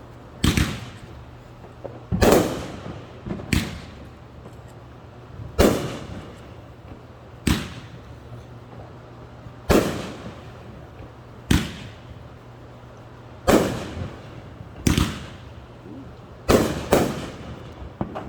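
Fireworks going off in a steady sequence: about eleven sharp bangs, one every second and a half to two seconds, each trailing off in an echo.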